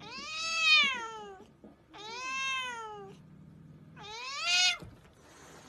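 Tabby cat giving three long, angry yowls at another cat, each call rising then falling in pitch; the third is the shortest.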